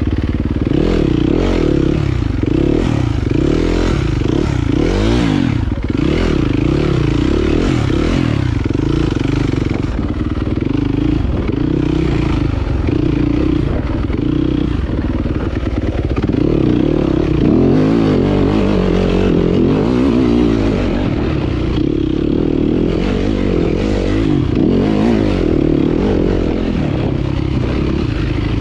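Yamaha dirt bike engine revving up and down without a break as it is ridden over rough trail, with clattering and knocks from the bike over the ground.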